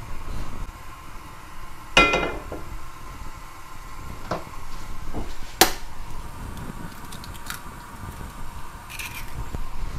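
Cookware and utensils clinking and knocking on a gas hob: one loud ringing clink about two seconds in, then a few lighter clicks and taps, among them an egg being cracked into a nonstick frying pan late on.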